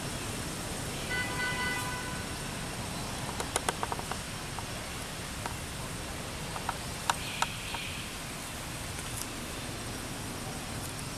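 Steady outdoor background hiss, like distant traffic, with a brief pitched toot about a second in. A few sharp clicks come around four seconds in and two more around seven seconds in.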